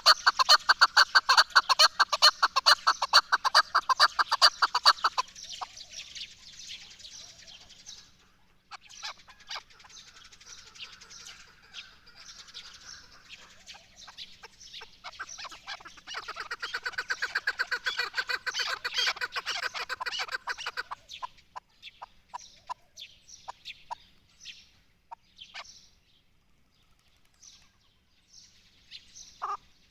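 Chukar partridge calling in rapid runs of repeated clucking notes. The runs are loudest in the first few seconds and again a little past the middle, then thin out into scattered single notes near the end.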